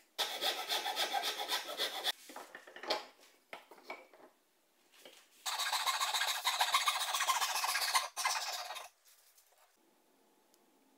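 Hand saw cutting through a small block of wood in two spells of fast back-and-forth strokes, the first about two seconds long and the second about three and a half, with a few light knocks in the pause between them.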